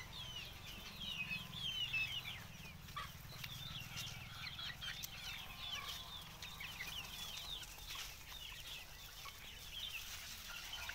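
A flock of young desi chickens calling: many short, high, falling peeps overlapping without pause, with some clucking.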